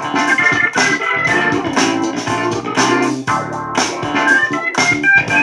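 Music played back through a Samsung Bottle Design (EO-SG710) Bluetooth speaker and picked up by a microphone: a melodic track with a steady beat.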